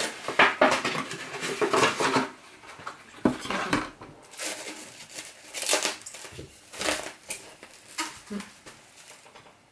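A new cardboard box of cling film being opened by hand, then the plastic roll being taken out and film pulled off it: papery rustling and crinkling, busiest for the first two seconds and then in short separate rasps.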